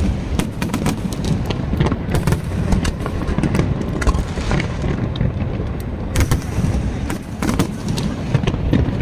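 Fireworks going off: rapid, irregular cracks and pops over a constant low rumble.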